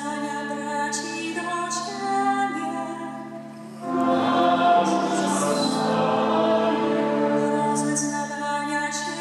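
A nun singing a litany in Polish over steady held low notes. About four seconds in the singing grows louder and fuller.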